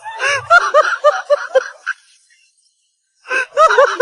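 High-pitched laughter, a quick run of repeated 'ha' pulses that stops about two seconds in and starts again near the end.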